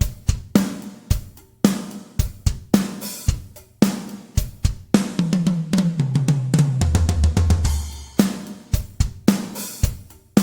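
Sampled acoustic drum kit from Toontrack EZdrummer 3 playing a groove of kick, snare, hi-hat and cymbals at about two beats a second. About five seconds in, a tom fill runs down in pitch from the high toms to the floor tom, and the groove picks up again near the end.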